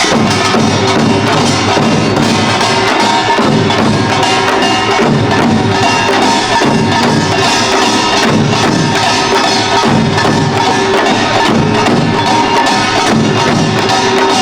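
Korean pungmul percussion band playing Imsil Pilbong nongak: kkwaenggwari small gongs clanging fast over janggu and buk drums, loud and continuous.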